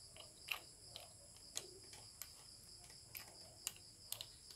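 Scattered light clicks and taps of hands fitting and turning the parts at the top of a ring-light stand, over a steady high chirring of crickets.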